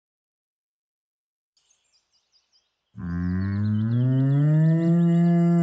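A cartoon cow mooing: one long moo that starts about three seconds in, rises from a low pitch and then holds. It is preceded by a few faint high chirps.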